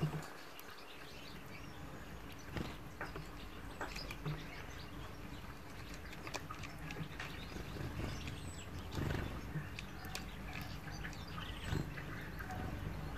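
European goldfinch and greenfinch feeding on sunflower seeds: scattered faint clicks and taps as the finches husk seeds and shift in the seed pan, with an occasional brief chirp.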